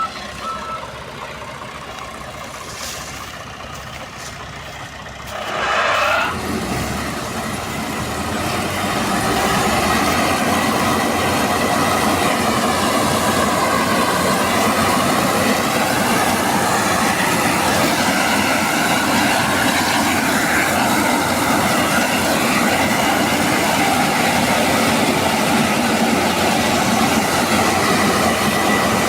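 Combine harvester running, with its reversing beeps sounding briefly at the start. About six seconds in the engine revs up, then it runs on loud and steady.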